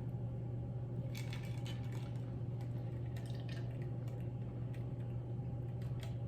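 Quiet room tone: a steady low hum with a few faint, scattered clicks and light handling rustles.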